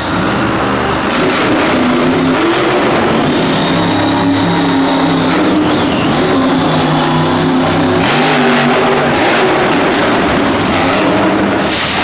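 Monster truck's supercharged V8 engine running loud and revving up and down as the truck drives around the dirt arena floor.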